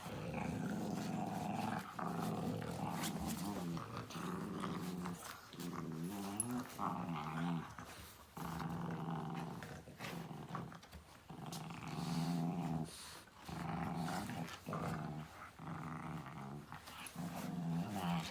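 French bulldog growling in long, drawn-out rumbles, one after another with short breaks, the pitch wavering in places.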